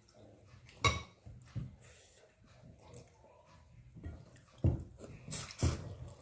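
Plates and bowls clinking and being handled at a meal table: a sharp knock about a second in and a few more near the end, with quieter handling in between.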